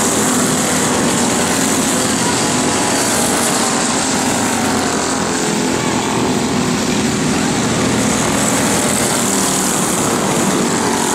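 Racing go-kart engines running in a steady, unbroken drone.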